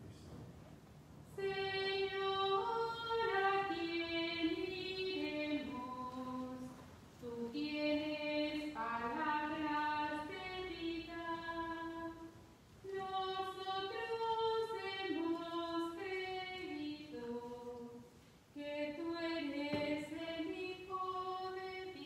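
A single woman's voice singing a communion hymn without accompaniment, in four long phrases with short pauses between them.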